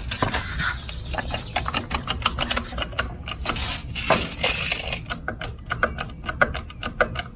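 A hand ratchet or crank mechanism clicking rapidly and steadily, several clicks a second, with a couple of louder scraping sounds about three and a half and four seconds in.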